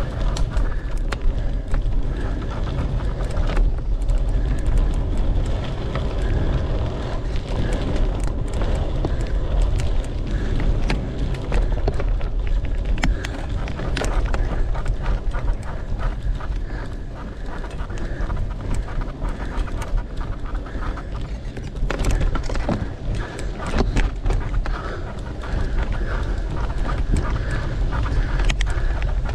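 Mountain bike ridden along a dirt trail: wind buffets the camera microphone with a heavy rumble, while the tyres and the rattling bike make frequent clicks and knocks over the bumps.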